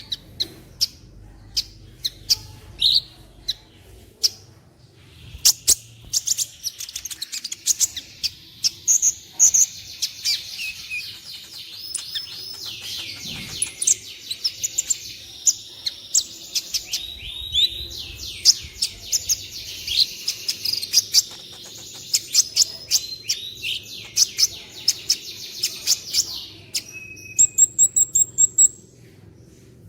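Sunbird ('kolibri') song: rapid high twittering trills with sharp ticking notes. The song is sparse at first and becomes a dense, continuous run from about five seconds in. It ends with a few very high notes shortly before the end.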